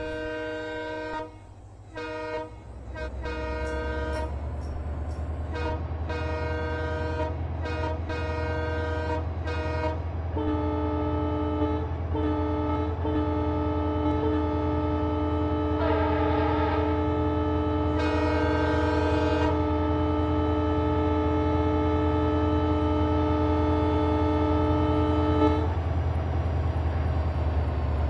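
Train horn sounding a series of short blasts, then one long blast of about fifteen seconds, briefly broken twice near its start. A steady low train rumble runs underneath.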